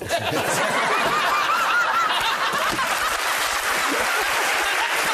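Studio audience and panel laughing loudly together, a dense, sustained crowd laugh.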